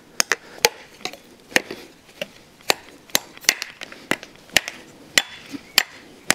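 Cold Steel Survivalist's drop-forged, one-piece steel blade chopping into wood. It makes a dozen or so sharp strikes at an uneven pace of about two a second.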